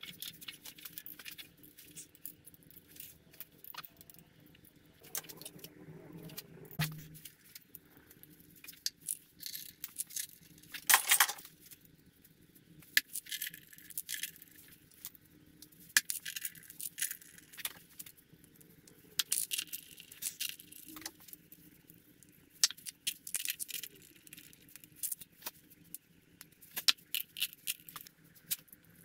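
Metal clinks, taps and small rattles of hand tools and parts on the valve gear and rocker covers of a Volvo TD 100 diesel engine under repair. They come in short, irregular bursts, with a louder clatter about eleven seconds in.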